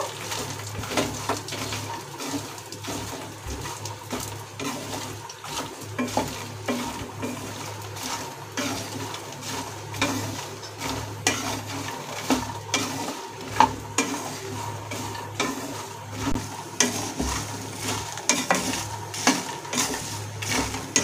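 Makhana (fox nuts) being stirred and roasted in ghee in a kadhai with a wooden spatula. The puffed seeds scrape and tumble against the pan in an irregular run of light clicks, over a faint sizzle of the hot ghee.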